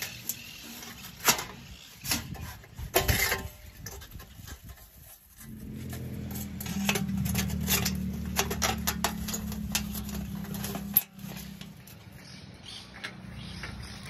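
Rusty steel plates of a flat-pack portable grill clinking, knocking and scraping as they are slotted together, with several sharp metal clicks. From about five seconds in a low steady hum runs under the clatter and stops abruptly about eleven seconds in.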